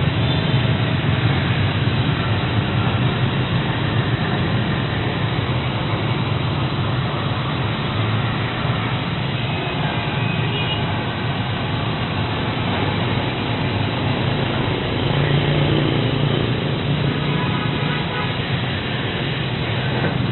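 CNC plasma cutting machine running: a steady, loud rushing noise with a low hum underneath.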